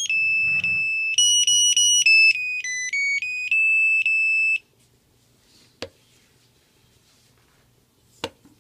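Scher-Khan car alarm key fob's piezo buzzer playing a sequence of high electronic beeps that step up and down in pitch, ending in a falling run and stopping just past halfway. Two single sharp clicks follow.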